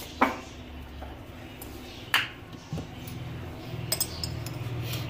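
Kitchenware clinking and knocking as it is handled and set down on a counter: a loud clink just after the start, another about two seconds in, then a few light clicks near the end, over a low steady hum.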